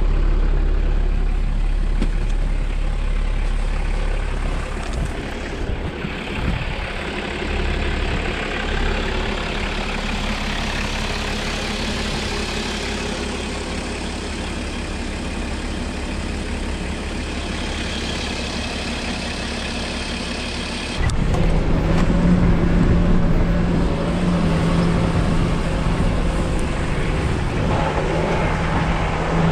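A motor vehicle driving, with continuous engine and road rumble. About two-thirds of the way through the engine note gets louder and settles into a steady drone, as under heavier load.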